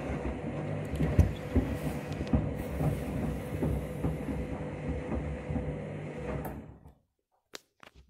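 Front-loading washing machine drum turning over a steady motor hum, with soapy water sloshing and shoes knocking against the drum. The sound cuts off suddenly about seven seconds in, followed by a couple of faint clicks.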